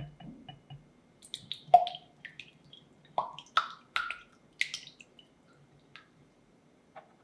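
Baking prep at a mixing bowl: a series of light, separate taps, clinks and small plops, some with a short ringing note, the loudest about two seconds in.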